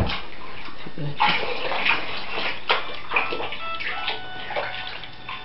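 Water running steadily into a bath as it is filled with warm water for a baby's bath.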